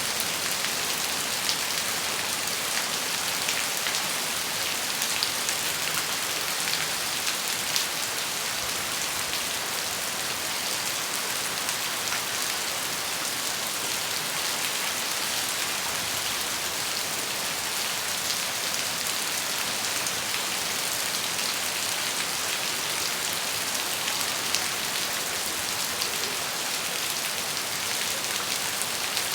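Steady rain falling, a dense even hiss with fine drop ticks throughout.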